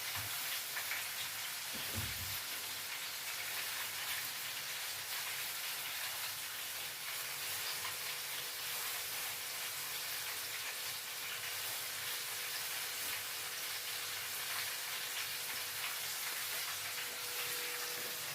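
Breaded chicken pieces deep-frying in hot oil: a steady sizzle with fine crackle. A faint low thump comes about two seconds in.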